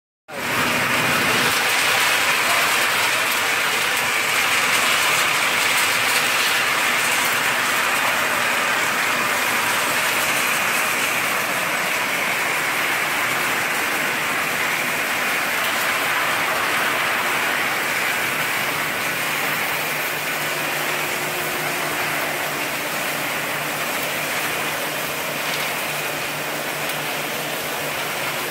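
Snack production line machinery running, including a rotating perforated stainless-steel drum: a steady, even rushing noise, with a low hum coming in after about twenty seconds.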